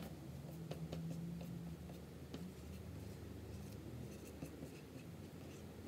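Marker writing on a dry-erase whiteboard: faint, short scratching and squeaking strokes as letters are drawn.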